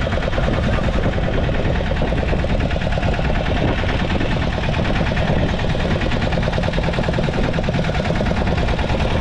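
A small fishing boat's engine running steadily, a fast, even pulsing that does not change.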